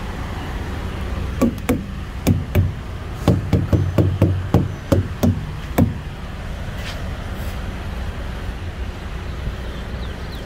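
Trailer tires being struck during a walk-around inspection, about a dozen dull knocks over roughly four seconds, some in quick pairs: the tires are being thumped to check their air. A steady low hum lies underneath.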